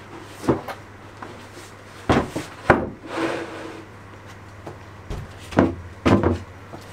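A large OSB board being handled: several hollow wooden knocks as the sheet is tipped and set down against wood, with a scraping slide of board on board about three seconds in.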